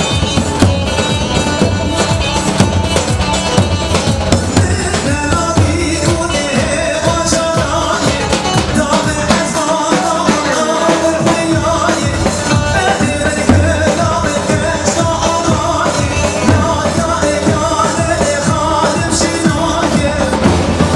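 Live Kurdish wedding dance music: keyboard and drums keeping a steady dance beat under a sung melody. The bass drops out for a moment about ten seconds in, then comes back.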